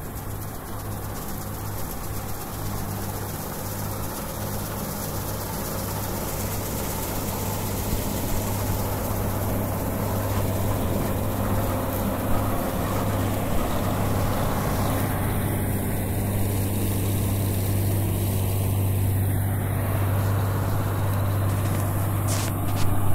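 New Holland Clayson 1530 combine harvester running while it cuts and threshes wheat: a steady low engine hum under the dense rush of the threshing machinery, growing gradually louder. A few sharp knocks come near the end.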